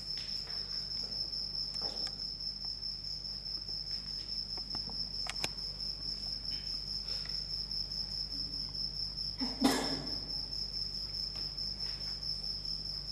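Crickets chirping: a steady, high, fast-pulsing trill. There is a sharp click about five seconds in and a brief thud near ten seconds.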